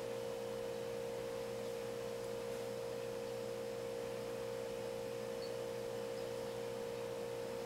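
Steady background hum: one unchanging mid-pitched tone with fainter steady tones above and below it.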